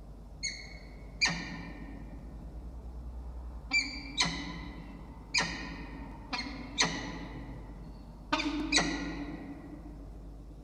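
A pair of peregrine falcons calling during a bowing pair-bonding display: about nine short calls, each starting sharply, several in quick pairs.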